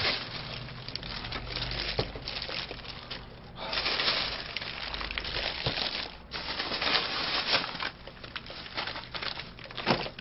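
Paper hamburger wrapper crinkling and rustling as it is unwrapped and handled, on and off with short pauses.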